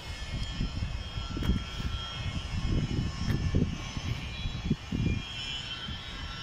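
Steady high whine of a distant aircraft turbine running on the apron, heard as several thin held tones. Over it, gusty wind buffets the microphone with an uneven low rumble.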